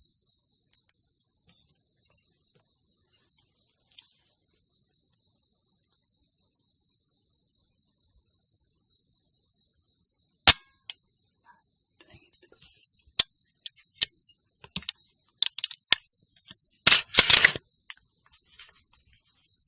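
A single sharp 300 Blackout rifle shot about halfway through, followed by a run of smaller clicks and knocks with a loud flurry a few seconds later. Night insects chirr steadily throughout.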